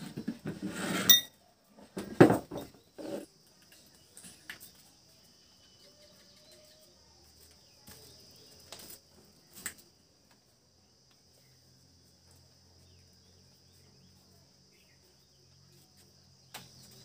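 Metal clanks and clinks from the parts of an e-rickshaw BLDC motor being handled and fitted together. There are two loud knocks in the first few seconds, then a few lighter clicks, all over a faint steady high-pitched whine.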